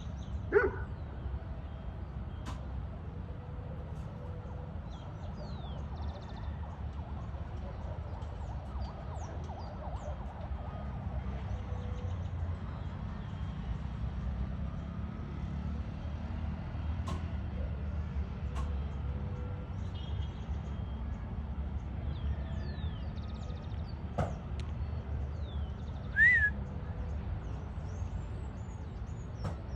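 Outdoor background: a steady low rumble with scattered faint bird chirps, and two short, louder pitched calls, one about half a second in and one near the end.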